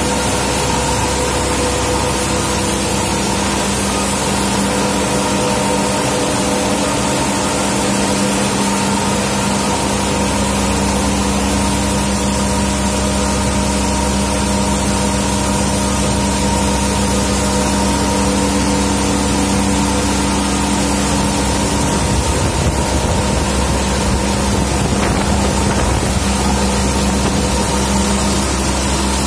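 A rice color sorter and its belt-driven feed line running steadily, giving a continuous machine hum of several held tones over a dense hiss. The hum wavers briefly about two-thirds of the way through, then settles again.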